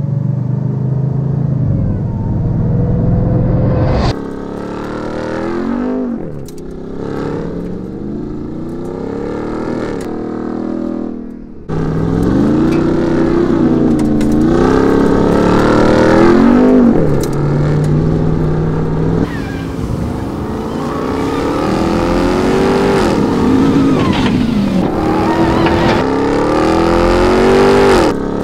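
Ram 1500 TRX's 6.2-litre supercharged HEMI V8 revving under hard off-road driving, its pitch climbing and falling again and again as the throttle is worked. The sound changes abruptly twice, about four and twelve seconds in.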